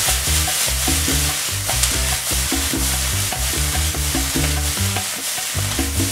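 Vegetables sizzling in a hot oiled frying pan as they are stir-fried and tossed, a steady hiss throughout. Background music with low notes runs underneath.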